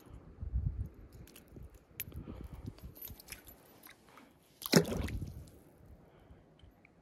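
Handling noise and light metallic clicks as a spinner lure's treble hook is worked free of a small landlocked salmon, then a sudden splash about five seconds in as the fish is let go into shallow water.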